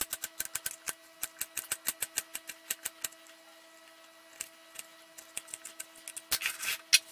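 Kitchen knife chopping a carrot into rounds on a plastic cutting board: quick, even taps of the blade on the board, about six a second, thinning out after about three seconds. Near the end comes a brief scraping as the slices are gathered off the board.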